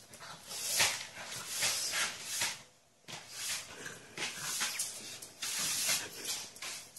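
A black pug puppy sniffing hard at a bug on the floor, in a string of short, noisy snuffling breaths, a few a second, with a brief pause partway through.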